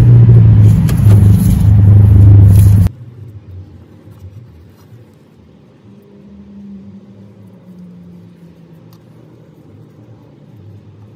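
A loud low rumble that cuts off abruptly about three seconds in, leaving only a faint low hum.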